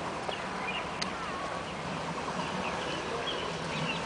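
Birds chirping, many short high calls over a steady outdoor background hiss.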